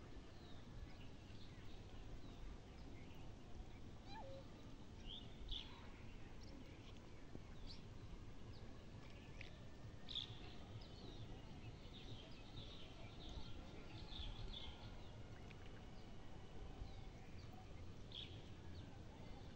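Faint outdoor ambience: scattered short bird chirps and calls over a low, steady background rumble.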